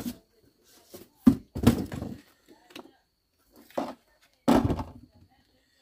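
Four or five dull thumps and knocks, spaced out with quiet between them, as a plastic-bodied cordless chainsaw and cardboard packing are handled and set down on a wooden table.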